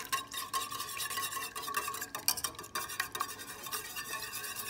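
Wire whisk beating eggs and citrus juice in a stainless steel saucepan, its tines clicking and scraping rapidly against the metal.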